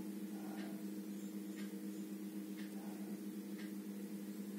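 Faint steady electrical hum with a few soft ticks.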